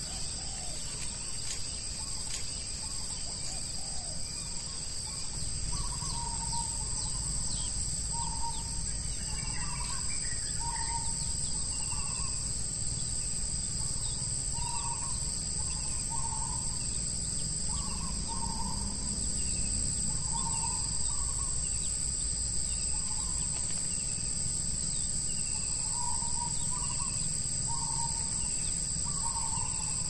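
Steady high-pitched drone of insects, with a bird calling in short notes about once a second from about six seconds in, and fainter higher chirps among them.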